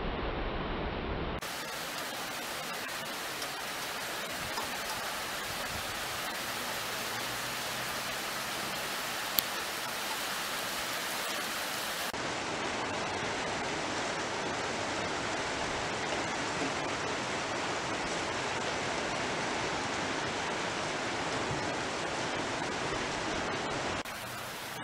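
Snow pellets (graupel) falling onto terracotta roof tiles as a steady hiss. The hiss changes tone abruptly about a second in and again around halfway, and one sharp click stands out a little past a third of the way through.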